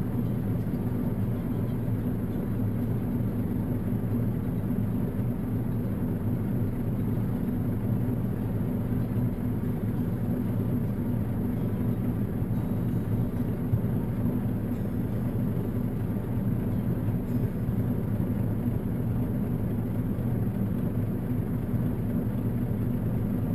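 Mahindra 1526 tractor's diesel engine running steadily at an even speed, a constant low drone.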